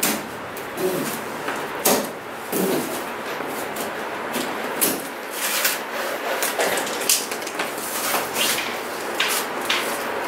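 Plastic packing straps being pulled off a cardboard bicycle box and bunched up: irregular sharp snaps and rustling scrapes of the strapping against the cardboard, over a steady background hiss.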